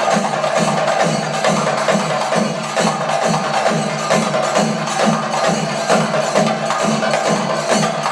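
Thayambaka drumming on chendas played with sticks: fast, dense strokes over a low beat pulsing about three times a second.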